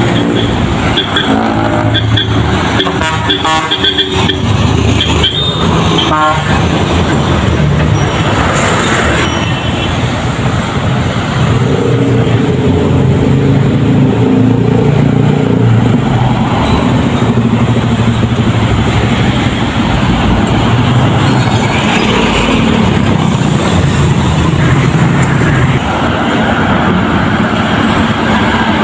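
Heavy diesel trucks running as they pass close by in steady road traffic. A vehicle horn toots several times in the first six seconds.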